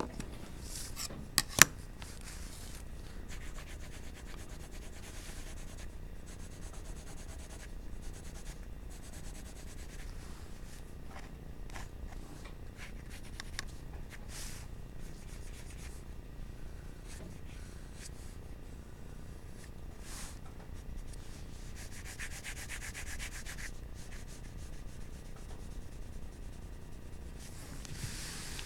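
Graphite pencil shading and blending strokes rubbing on paper: a soft, scratchy hiss that comes and goes. Two sharp taps sound about a second and a half in.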